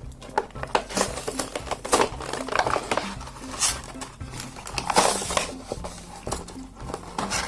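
Hands opening a plastic-and-cardboard toy package, with irregular clicks, taps and rustles. Background music plays underneath.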